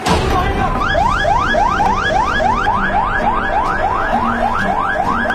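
Siren sounding in quick, evenly repeated rising sweeps, a little over three a second, over a low background rumble.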